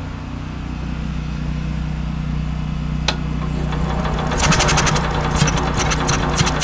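Small generator engine running steadily at a low hum. About four seconds in, a burst of irregular sharp clicks and rattles joins it. The engine is running only on fuel poured down the carburettor, which the owner blames on the electric fuel pump not getting proper power.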